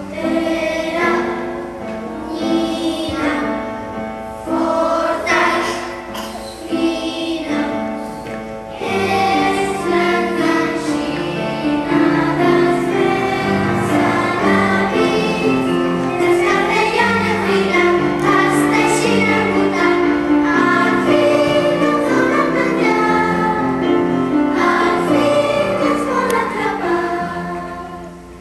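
A choir of children and women singing a song with keyboard accompaniment, growing fuller and louder about a third of the way in and fading down at the end.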